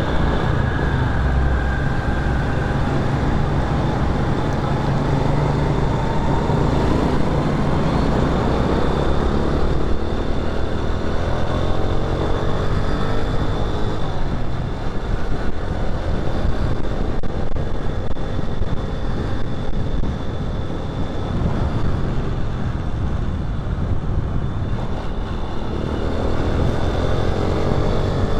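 Motorcycle engine running in slow traffic, its pitch rising and falling as it is revved through the gears, with a rise near the end, over steady road noise.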